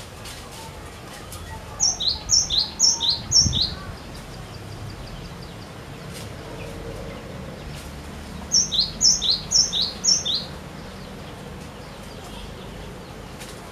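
Cinereous tit (glatik batu) singing: two bursts of its repeated two-note song, each four quick phrases of a high note followed by a lower falling one, about six seconds apart.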